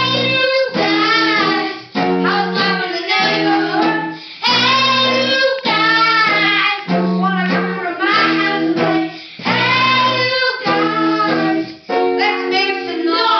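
Children singing a rock song into microphones over strummed electric guitar chords, in short sung phrases with brief breaks between them.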